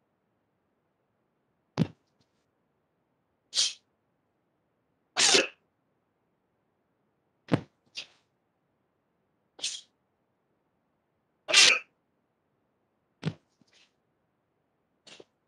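About nine short, sharp, forceful exhalations, roughly one every two seconds, as a karate practitioner punches and strikes through a kata; a few carry a lower thud with them.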